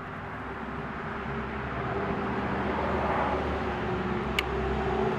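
A steady mechanical drone with a low hum, slowly growing louder, and one short light click about four seconds in.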